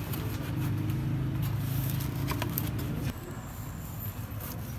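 A steady low engine hum that drops away about three seconds in, with scattered light clicks and scrapes of food being handled at the counter.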